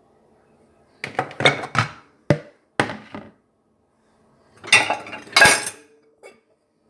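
Clean dishes clinking and clattering against each other as they are handled, in two bursts: a run of sharp knocks about a second in, then a denser clatter near the middle.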